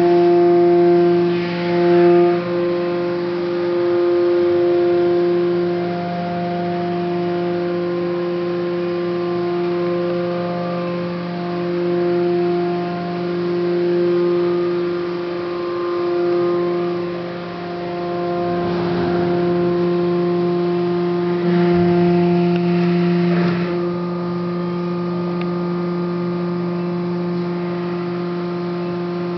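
Hydraulic drive of a Haco 400-ton CNC press brake running: a steady pitched hum with its overtones, swelling and easing slightly. Brief rushes of noise come about two seconds in and again near nineteen and twenty-three seconds.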